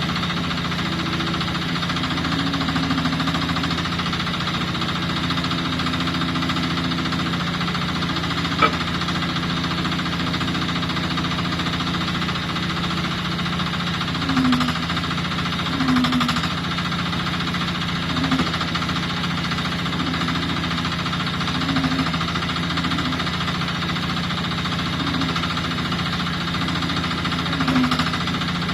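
Mini excavator's Euro 5 diesel engine running steadily, with brief swells in its note every couple of seconds through the second half and a single sharp click about nine seconds in.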